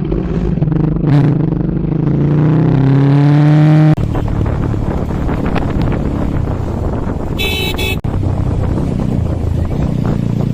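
Bajaj Pulsar RS 200's single-cylinder engine on its stock exhaust, revving with the pitch rising steadily for about four seconds. It then breaks off suddenly into a steady running sound while riding, with a short high beep near the middle.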